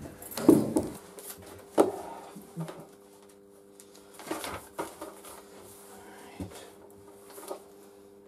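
Scattered knocks and light rustles of things being handled on a wooden workbench, the loudest about half a second in and again near two seconds in, over a steady low hum.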